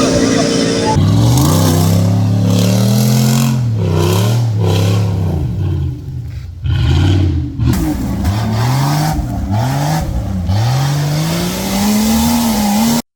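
Off-road racing 4x4 engines revving hard, the note climbing and falling again and again, about once a second, in a string of short edited cuts. The sound cuts off abruptly near the end.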